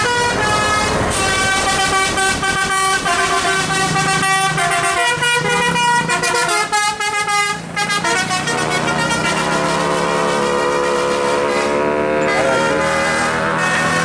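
Telolet musical air horns on a tour bus playing a quick tune of stepped notes for about the first eight seconds. After that comes a steadier drone that rises slowly in pitch over the low hum of a bus engine.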